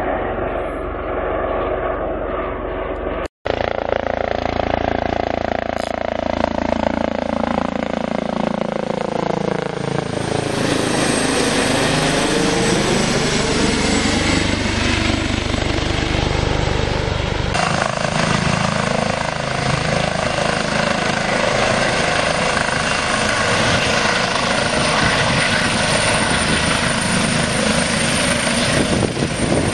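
Airbus H145M military helicopter flying by close, a loud steady rotor and turbine noise, with a sweeping rise and fall in pitch as it passes about halfway through. The sound breaks off for an instant about three seconds in and changes abruptly a little past halfway.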